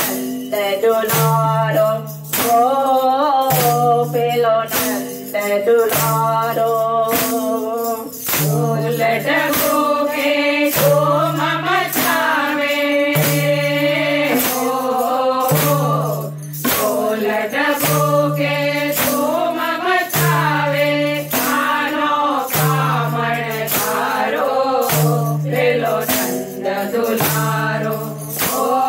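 Group of women singing a Gujarati devotional raas song in unison, accompanied by a steady beat of wooden kartal clappers with jingles and a low bass note that repeats in even blocks.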